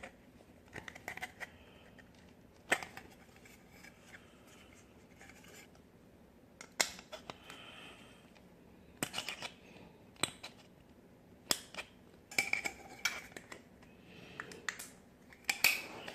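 Hand tool working on the plastic of a washing machine outlet box, pressing in the knockout area. It makes irregular sharp clicks, some in quick clusters, with short scraping between them.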